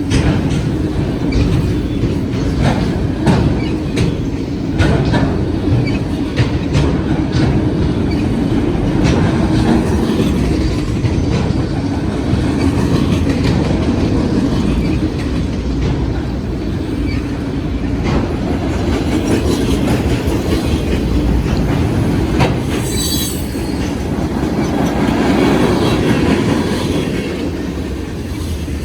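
Freight train cars rolling past with a steady low rumble and repeated clicking of wheels over the rails. A brief high wheel squeal comes about two-thirds of the way through.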